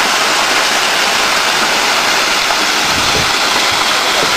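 Steady, loud rushing of a muddy debris flow pouring down a rocky gully.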